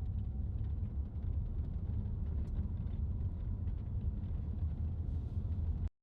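A car driving down a rough, bumpy road: a steady low rumble of the engine and tyres with faint small knocks and rattles. The sound cuts off suddenly near the end.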